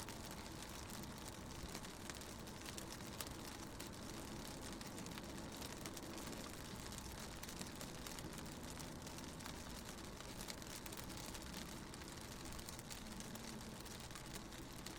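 Rain falling on a car's window, heard from inside the moving car: a dense scatter of small drop ticks over a steady low rumble of engine and road.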